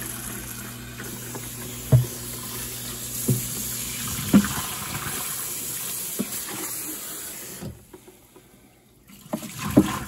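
Tap water from a kitchen faucet's pull-down sprayer running onto the plastic tank of a Levoit LV600S humidifier and into a stainless steel sink, with three sharp knocks along the way. The water shuts off abruptly about three quarters of the way through, followed by a few knocks and handling sounds near the end.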